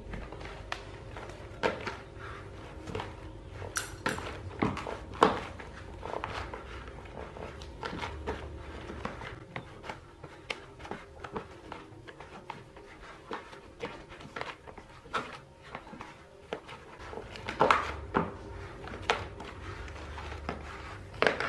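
Hands kneading a stiff garlic-stick dough in a plastic bowl until it is smooth: irregular soft knocks and thumps as the dough is pressed, folded and turned against the bowl. A steady low hum runs underneath.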